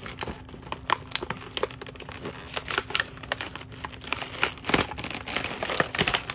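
Toy packaging being handled and pried open by hand, crinkling and crackling with many small irregular clicks.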